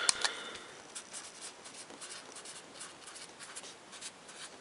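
Felt-tip permanent marker writing on a paper slip: faint, quick scratchy strokes of the tip across the paper. A couple of sharp clicks right at the start.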